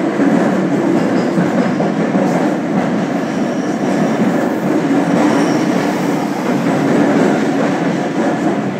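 Meitetsu 100 series electric train with Mitsubishi GTO VVVF traction running along the line: a steady rumble of wheels and running gear.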